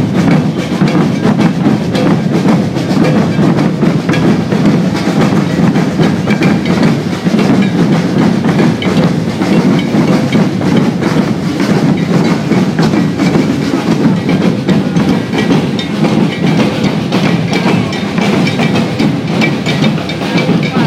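A maracatu percussion group playing on the move: many rope-tuned alfaia bass drums struck with wooden sticks in a dense, steady, driving rhythm.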